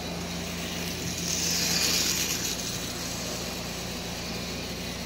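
Marx 112 diesel switcher's DC motor running on AC track power through a soldered-on diode, which converts the AC to DC: a steady low hum under the rolling rattle of the toy train on its track. The rolling noise rises about a second in and eases off again around three seconds.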